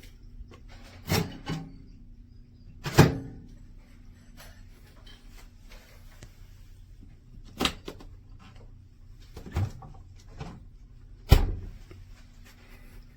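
A series of sharp knocks and clunks of hard objects, spaced a few seconds apart, the loudest about three seconds in and near the end, over a faint steady hum.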